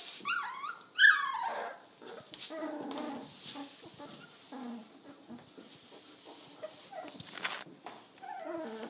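Very young golden retriever puppies squealing and whimpering: two loud high squeals that fall in pitch in the first two seconds, then softer low grunts and whines, with one more whine near the end.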